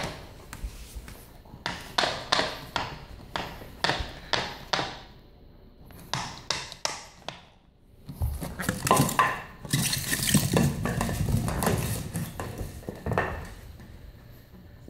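Empty plastic water bottle being pushed, rolled and bitten by a French bulldog puppy on a hardwood floor: a run of clattering, crinkling knocks that grows denser and louder about eight seconds in, then quietens near the end.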